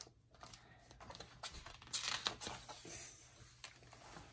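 Faint rustling and small clicks of a hardcover picture book's page being turned by hand, loudest about two seconds in.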